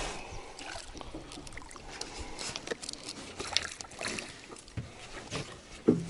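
Water dripping and sloshing with scattered knocks and clicks in a small boat as a freshly netted wild carp (sazan) is handled in the landing net; one louder knock comes near the end.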